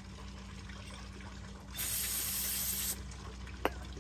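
A hiss of aerosol spray lasting about a second, squirted into a passage of a varnished carburetor, then a single sharp click near the end. A low steady hum underneath.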